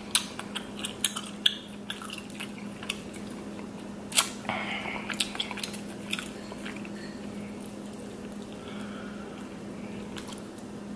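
King crab leg shell being bitten and pulled apart while eating: a run of sharp cracks and clicks in the first half, the loudest about four seconds in, then quieter chewing. A steady low hum runs underneath.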